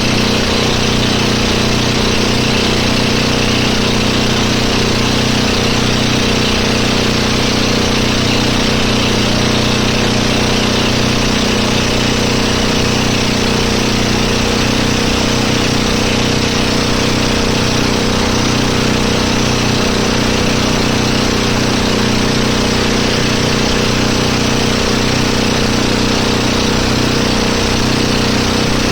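Motorboat engine running at a steady, unchanging speed.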